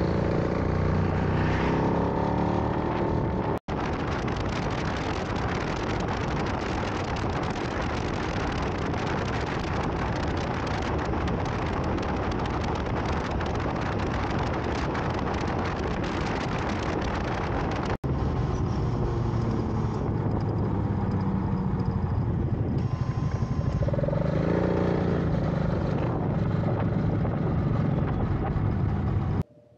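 Motorcycle engine running on the road, with heavy wind rush on the microphone; the engine note rises and falls in the first few seconds and again in the last ten, and the sound cuts out for an instant twice.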